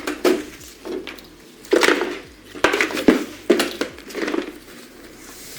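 Hard plastic router and its packaging being handled: a run of irregular knocks, clacks and short scrapes, busiest in the middle of the stretch.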